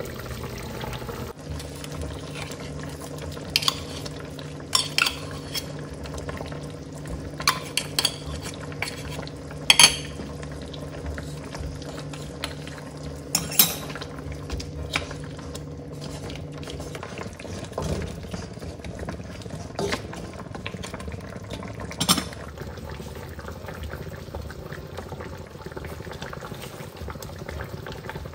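Pork bones in sauce being stirred in a carbon-steel wok with a wooden spatula, with scattered sharp knocks and clinks of the spatula and metal lid against the pan, over the steady bubbling of the simmering sauce.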